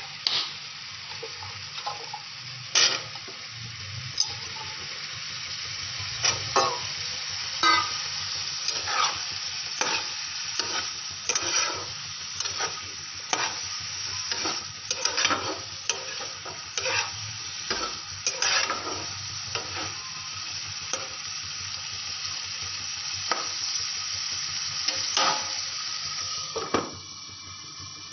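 Long beans and potatoes frying in a non-stick pan with a steady sizzle, while a steel spatula scrapes and taps against the pan about once a second as it stirs. Near the end there is a clatter as a glass lid goes on, and the sizzle turns quieter.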